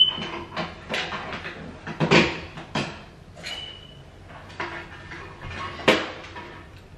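Rummaging and handling of household objects: a string of knocks and clatters, the loudest about two seconds in and just before six, with two brief high squeaks, at the start and about halfway.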